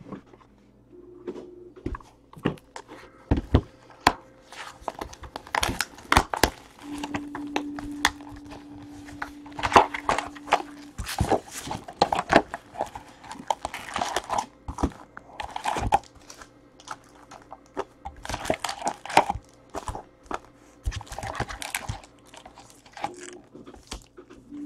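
Plastic shrink wrap crinkling and tearing as a sealed trading-card box is unwrapped, with irregular crackles and rustles as the box is opened and the card packs are handled.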